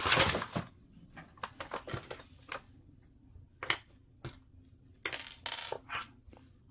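Small hard plastic model-kit parts clicking and clattering as they are handled and set down. A louder rattle comes at the start, then scattered sharp clicks, with a cluster of them near the end.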